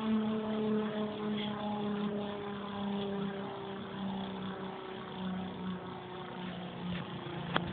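Beyblade Cosmic Pegasus W105 R2F spinning in a plastic stadium, its rubber flat tip whirring on the floor with a steady hum that slowly sinks in pitch as the top loses speed.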